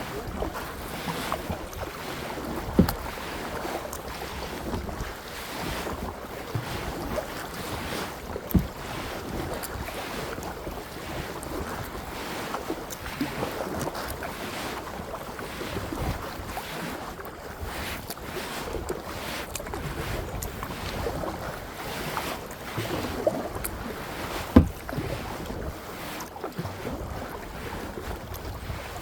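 Kayak on the water: paddle strokes splashing and water lapping at the hull, with wind buffeting the microphone. A few sharp knocks stand out, about three seconds in, near nine seconds and near the end.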